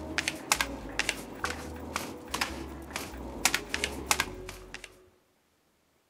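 Rapid, irregular sharp clicks, like typing, over a low hum, stopping abruptly about five seconds in.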